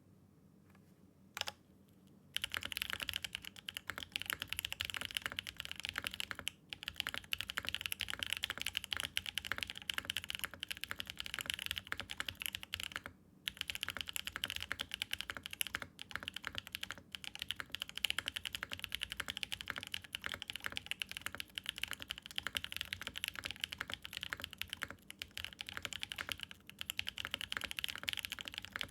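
Typing on a mechanical keyboard fitted with BSUN Strawberry Cheesecake tactile switches (long-pole LY stems, POK housings, factory lubed) in a PC Mode Envoy with a POM plate, no foam and GMK keycaps. Fast, continuous keystrokes start about two seconds in and run with a few short pauses; a deeper, more muted sound than most long-pole switches.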